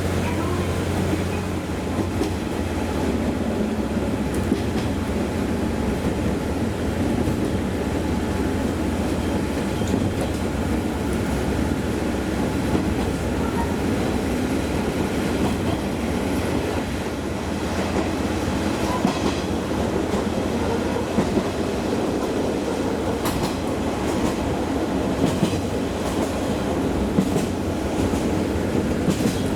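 Train running along the track: a steady rumble with occasional clicks of the wheels over rail joints.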